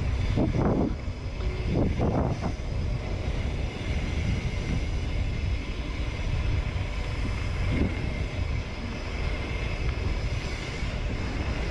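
Wind buffeting the microphone and a mountain bike's tyres rolling over a dirt trail during a ride, a steady rushing rumble. A few brief louder rushes come about half a second in, around two seconds in and near eight seconds.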